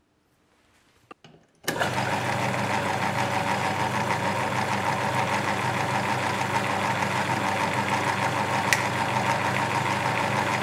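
Myford ML7 lathe running at speed, its motor and belt-driven headstock spinning the three-jaw chuck with a steady hum. It starts abruptly about a second and a half in, after a few faint clicks, and there is one sharp click near the end.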